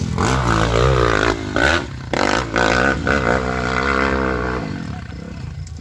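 Dirt bike engine revving hard on a steep hill climb, its pitch rising and falling with the throttle and breaking off briefly a few times, then fading away about four and a half seconds in.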